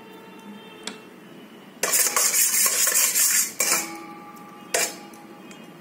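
Metal spoon scraping against the bottom of a stainless steel pot, spreading ghee to grease it. There is a loud scrape of about two seconds beginning near the two-second mark, then a shorter scrape and a sharp clink about a second later.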